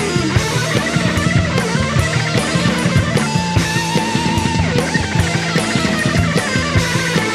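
Background rock music: a drum kit keeping a steady beat under guitar.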